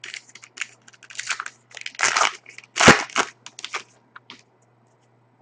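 Plastic-foil wrapper of a hockey card pack being torn open and crinkled by hand: a run of short crackling rustles, the loudest crunch about three seconds in, dying away near the end.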